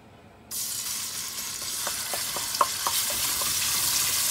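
Green Haitian spice seasoning hitting hot oil in a metal pot and sizzling. The sizzle starts suddenly about half a second in and grows louder, with a quick run of small sharp clicks in the middle as a wooden spoon stirs it.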